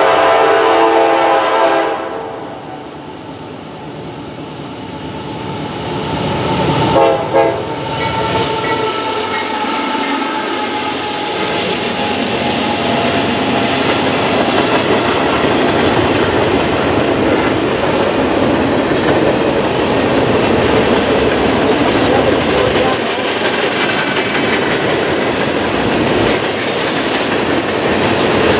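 A freight train's horn sounding as it approaches, cutting off about two seconds in, then two short blasts about seven seconds in. The train then passes close by, its freight cars' steel wheels rolling on the rails in a steady noise.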